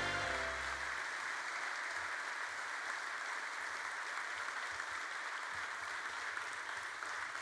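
Audience applauding steadily, while a piece of music fades out in the first second.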